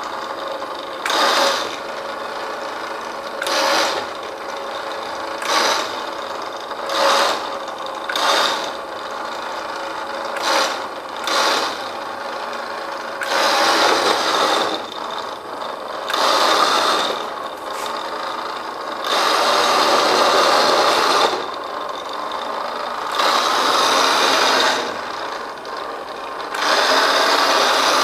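Electric drive motor and gears of a battery-operated KX 2000 radio-controlled space car whirring in bursts as it is driven and turned. The bursts are short at first and longer, one to two seconds each, later on, over a fainter steady whirr.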